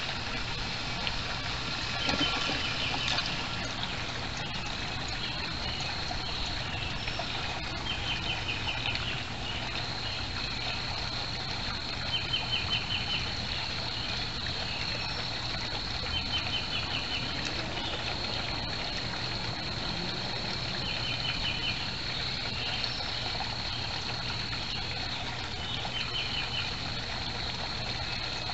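Water trickling at a backyard koi pond, with a songbird repeating a short, rapid trill every few seconds. A thin, steady high tone runs behind it and drops out a few times.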